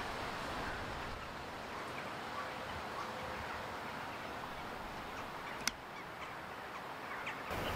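Outdoor ambience: steady background noise with faint, scattered calls of distant birds, and a single sharp click about three quarters of the way through.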